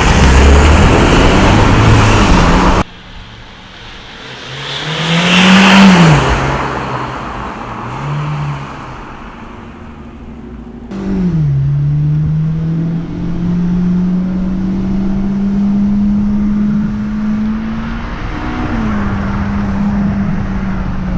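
Mitsubishi Lancer Evolution's turbocharged four-cylinder running with an ETS aftermarket intake. It opens with a loud rushing noise that cuts off suddenly. About five seconds in the engine revs up and drops back with a swelling intake whoosh. From about eleven seconds it runs steadily, its pitch slowly climbing.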